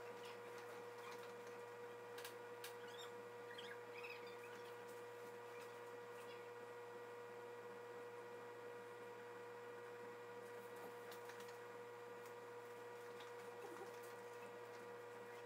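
Near silence: a steady electrical hum with a few faint scattered ticks.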